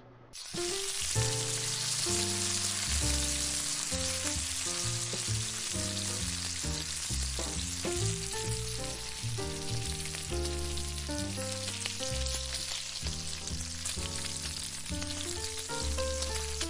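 Bacon strips sizzling as they fry, with background music playing over it.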